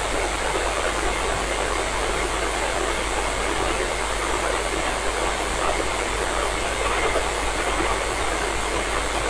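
Steady radio static from a receiver tuned to the International Space Station's 145.800 MHz downlink, with no transmission coming through, and a faint steady tone in the hiss.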